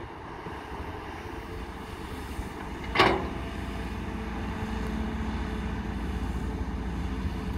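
Caterpillar hydraulic excavator's diesel engine running steadily as it swings and digs into soil, with a single sharp metal clank about three seconds in. The engine note rises a little from around four seconds as the bucket digs.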